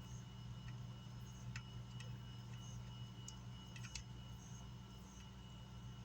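Light, irregular clicks and taps of small parts and tools being handled during bench work on an amplifier, a handful of them, over a steady low electrical hum.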